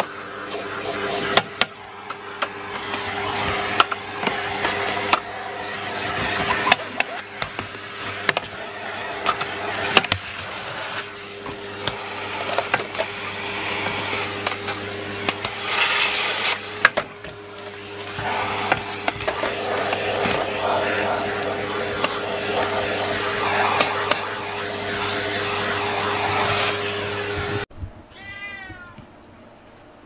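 Vacuum cleaner running steadily on its lowest setting, with the hose and nozzle knocking and scraping against a wooden floor, and a louder hiss of suction about halfway through. The motor sound stops abruptly near the end, followed by a short falling run of chirps.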